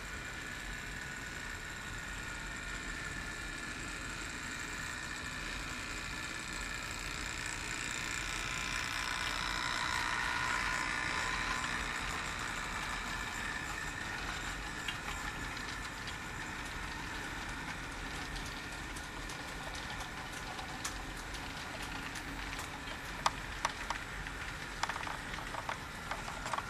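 HO scale model train running past, its motor whine swelling as it comes closest and fading as it goes by, with a few sharp clicks near the end.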